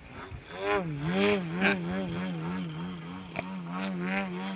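ZDZ 180 twin-cylinder two-stroke gas engine of a large radio-controlled plane in flight, running through canister mufflers with a sound like a tuned pipe. The engine grows loud about a second in, and its pitch wavers up and down about twice a second as the plane manoeuvres.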